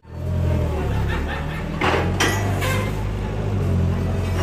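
Forklift engine idling steadily, with a couple of sharp metallic knocks about two seconds in as the steel crate frame is shifted on the forks.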